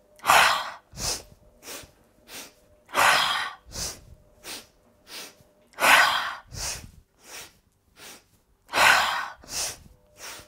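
Breath of joy pranayama: a woman takes three short, sharp sniffing inhales through the nose, then one loud, forceful exhale through the mouth. The cycle repeats about every three seconds, with four exhales in all.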